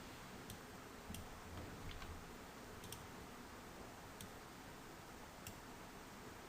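Faint computer mouse clicks, about six scattered irregularly, as anchor points are placed with a pen tool, over a steady low hiss.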